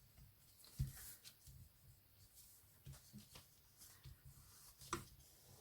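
Near silence with faint handling sounds: fingers pressing a sheet of acetate into a cardstock lid, soft rustles and small taps, with a sharper tap about a second in and another near the end.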